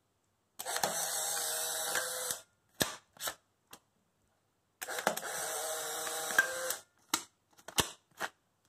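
Polaroid SX-70 camera's film-ejection motor, driven by a home-built external battery, running twice for about two seconds each: first pushing out the dark slide, then the exposed print. Several short mechanical clicks follow each run.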